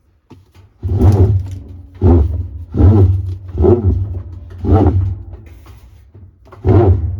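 Kenmore Series 500 top-load washer making a grinding noise in six loud, uneven surges roughly a second apart, with the drum no longer spinning. The noise is the sign of a worn drive hub whose teeth have worn shallow and no longer grip.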